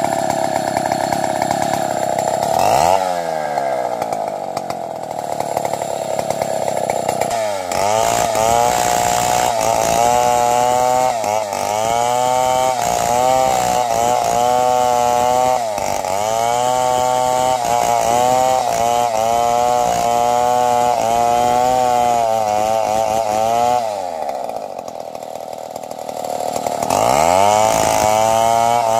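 Two-stroke chainsaw sawing into a durian tree trunk, running at full revs with its pitch dipping and recovering as the chain loads in the cut. It falls back to idle about three seconds in and again near twenty-four seconds, each time revving back up into the cut.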